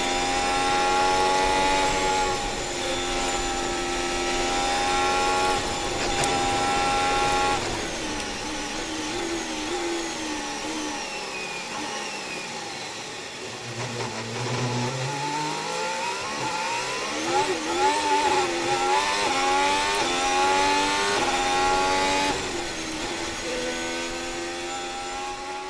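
Onboard sound of a Ferrari Formula 1 car's turbocharged V6 running hard on a wet track. The revs climb and drop back at each gear change; around the middle they waver lower and unevenly, then climb through several quick upshifts again near the end.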